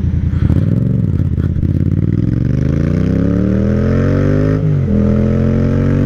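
Yamaha MT-07's 689 cc parallel-twin engine pulling away at low revs, then accelerating with its note rising steadily. About three-quarters of the way through the pitch drops sharply at an upshift, then climbs again.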